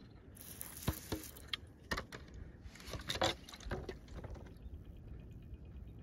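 Water splashing onto a piece of petrified wood to wet it, in a couple of short splashing bursts, with a few sharp clicks as the rock is handled over river gravel.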